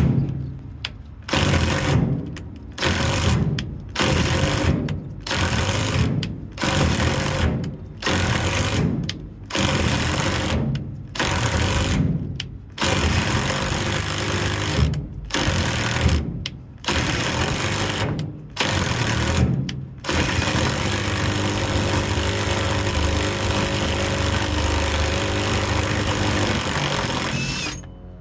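Cordless 14-volt drill backing out rusted fasteners. It runs in about a dozen short bursts of roughly a second each with brief pauses, then runs continuously for about eight seconds before stopping abruptly near the end.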